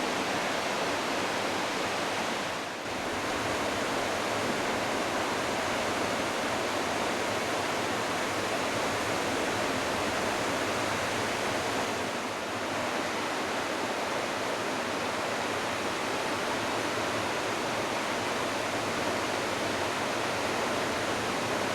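The Smith River in flood, its high water rushing in a steady, loud roar. The roar dips briefly about three seconds in and again about twelve seconds in.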